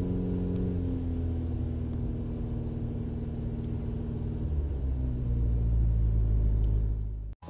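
Car engine running with a steady low rumble that swells in the last couple of seconds, then cuts off abruptly near the end.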